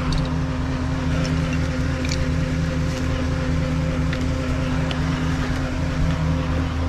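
Tow truck's diesel engine idling steadily with an even, deep hum, with a few light clicks over it.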